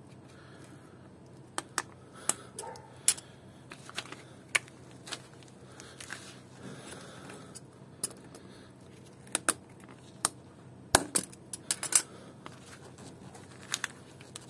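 Pliers clicking and clinking against a metal hose clamp on a coolant hose as the clamp is worked loose. The sharp metal clicks come irregularly, about a dozen of them, with the loudest bunched near the end.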